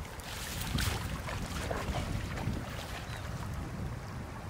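Wind rumbling on the microphone over shallow floodwater, with a few brief scuffs in the first second.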